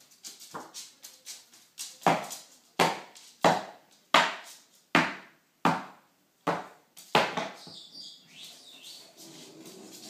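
Umbrella cockatoo knocking against the wooden floor while playing: a run of sharp knocks, about one every 0.7 seconds. The knocks give way to softer scuffling over the last few seconds.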